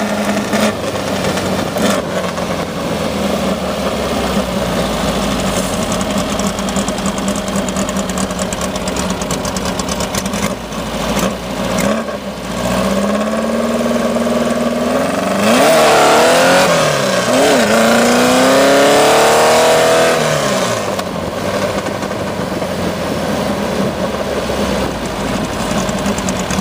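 Rail buggy's engine and road noise heard from on board while driving. About halfway through the engine revs up, its pitch rising several times with drops between, as it accelerates through the gears.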